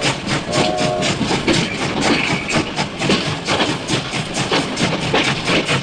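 Miniature steam train running with a fast, even rhythmic clatter, about four to five beats a second, and a short whistle-like tone just under a second in.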